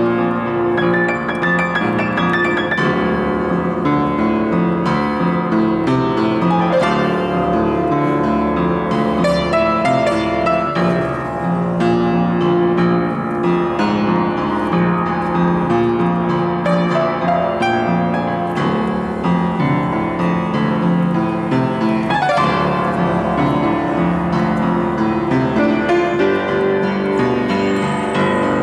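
Acoustic upright piano with its front panel removed, played with both hands in a steady, unbroken stream of notes and chords.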